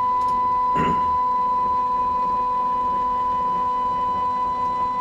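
Stepper motor of a DIY CNC machine driving the x-axis ball screw as the router carriage is jogged along its rail: a steady, high-pitched whine at one unchanging pitch.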